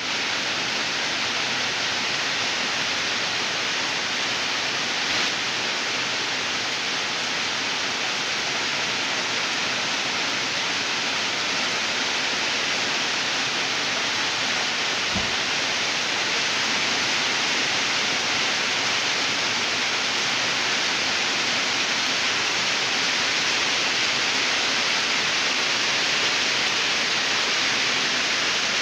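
Heavy rain pouring down steadily on garden foliage, a continuous even hiss.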